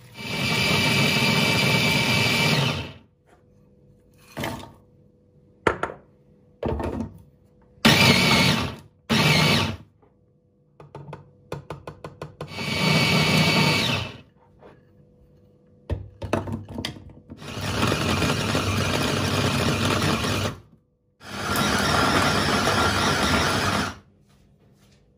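A small electric kitchen appliance motor, of the blender kind, run in about six bursts of one to three seconds each, with short clicks and knocks in the pauses between.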